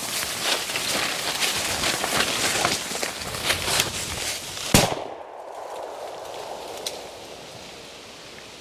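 Brush and dry leaves rustling and snapping underfoot while pushing through thick cover, then a single shot from a Weatherby Orion side-by-side shotgun, one sharp crack a little under five seconds in, fired at an unseen flushing ruffed grouse.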